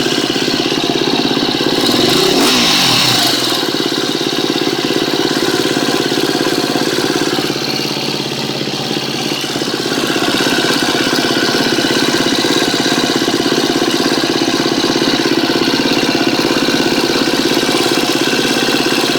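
KTM 250 EXC-F single-cylinder four-stroke engine idling, with one short blip of the throttle about two seconds in. A new Dirt Tricks cam chain tensioner has just been fitted to replace a noisy one, and the owner finds it running pretty good so far.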